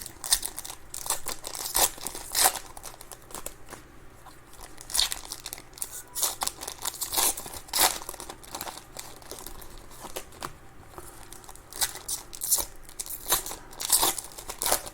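Trading-card pack wrappers crinkling and tearing as packs are opened and the cards handled, in irregular sharp crackles.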